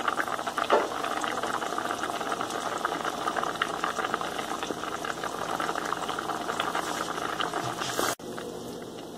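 Thick coconut kurma gravy boiling in a steel pan, a steady bubbling with many small pops. About eight seconds in it drops suddenly to a quieter bubbling.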